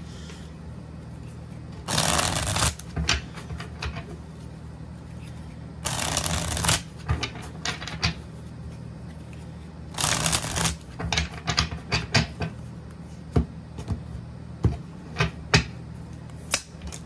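A deck of tarot cards being shuffled by hand: three bursts of shuffling, each under a second and about four seconds apart, with scattered short taps and clicks of the cards between and after them.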